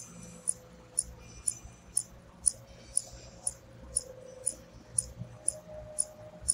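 Steady, evenly spaced ticking, about two sharp high ticks a second, like a clock. Beneath it a faint held tone rises slightly in pitch in the second half.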